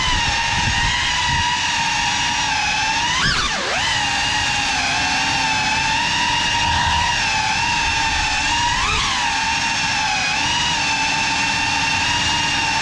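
Small FPV quadcopter's brushless motors and propellers whining steadily, the pitch wavering with throttle. The pitch dips and surges sharply about three and a half seconds in, then rises briefly near nine seconds.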